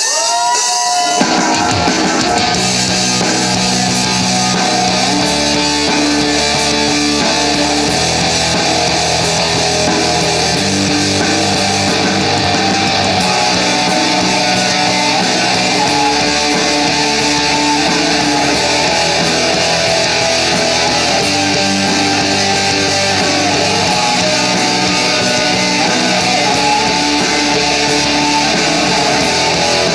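Live rock band playing the instrumental intro of a song, with strummed electric guitar chords changing every couple of seconds.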